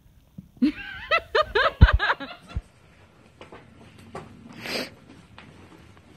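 A person laughing in a quick run of high-pitched ha-ha bursts that lasts under two seconds, with a couple of dull low thumps in it; a short breathy rush of air follows about halfway through.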